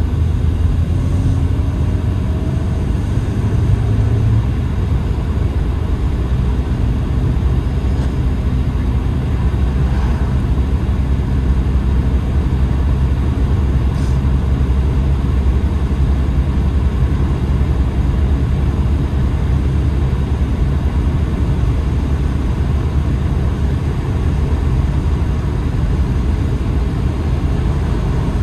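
Steady low rumble of a car driving along an asphalt road, heard from inside the cabin: engine and road noise at an even speed.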